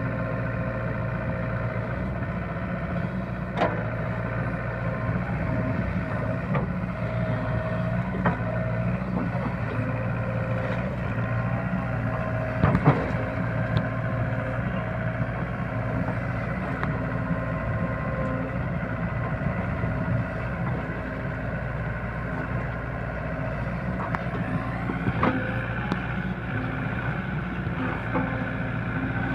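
SDLG crawler excavator's diesel engine running steadily while it digs in wet mud, with a few sharp knocks from the machine, the loudest about 13 seconds in. The engine note rises slightly near the end.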